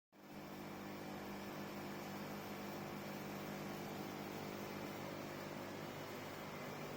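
Electronica Hitech CNC wire-cut EDM machine running: a steady hum with an even hiss over it.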